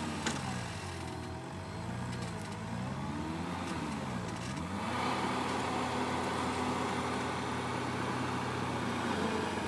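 Heavy equipment's diesel engine revving up and down several times, then holding at a steady higher speed from about five seconds in, as the machine strains to get free of deep mud.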